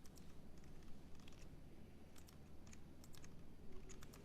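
Faint, irregular computer keyboard keystrokes and clicks.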